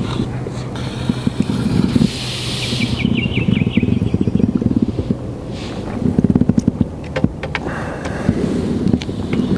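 Rumbling, crackling handling noise close to the microphone as a hooked fish is played on a float rod and the landing net is brought out, with a quick run of small ticks about two seconds in.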